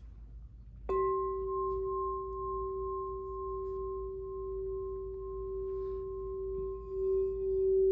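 A 6-inch Crystal Tones Lemurian Seed smoky quartz alchemy crystal singing bowl, tuned to G-40, is struck once about a second in. It rings with one clear, steady tone and fainter higher overtones that slowly fade. Near the end a wand is run around the rim, and the tone swells in slow waves.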